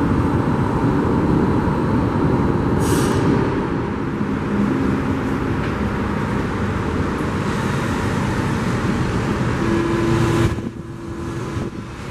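Metro train running on elevated track: a steady rumble from wheels and running gear, with a brief hiss about three seconds in. The noise drops off sharply near the end.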